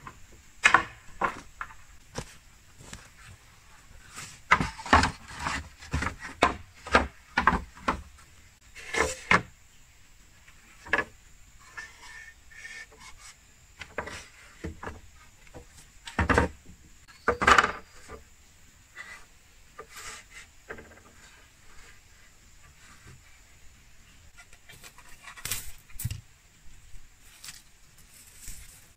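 Hollow wooden knocks and clacks of bamboo poles being struck and handled, with a quick run of strikes about four to eight seconds in and a few louder single knocks later, and quieter scraping between them.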